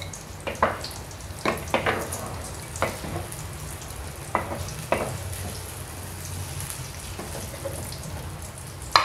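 Hot oil sizzling in a frying pan as fried garlic is scooped out into a bowl, with several short taps and scrapes of the utensil against the pan and bowl, most of them in the first five seconds.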